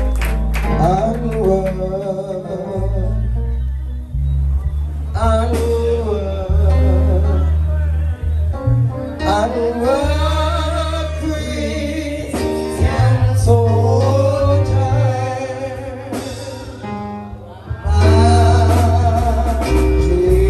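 Gospel music: a singer's voice carrying a wavering melody over a band with a heavy bass line and guitar.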